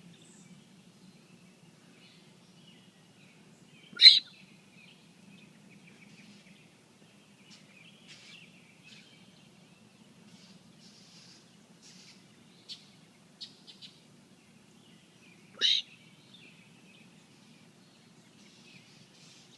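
A man's unusual, high-pitched hiccups: two sharp, loud hiccups about eleven and a half seconds apart. Faint bird chirps are scattered between them over a low steady hum.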